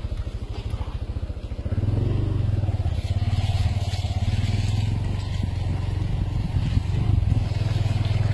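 A 4x4 vehicle's engine runs steadily under load while driving off-road, growing louder about two seconds in.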